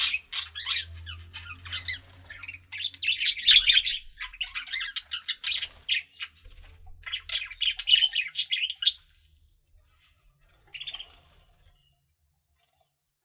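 Budgerigars (pet parakeets) chattering and warbling in quick, high, scratchy notes. They fall silent about nine seconds in, with one short call a couple of seconds later.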